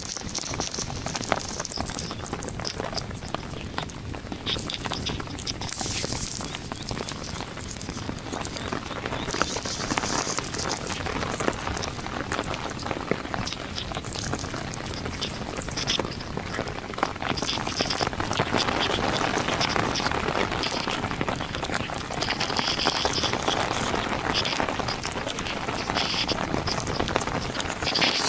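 Heavy rain falling steadily, a dense patter of drops with many sharp individual drop clicks throughout.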